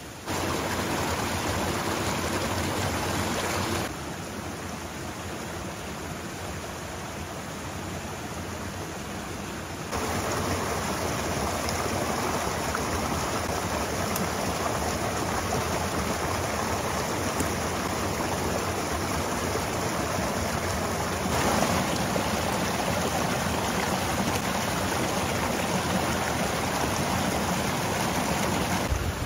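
Heavy rain falling as a steady hiss. The level drops suddenly about four seconds in, comes back up about ten seconds in, and rises a little again near the twenty-second mark.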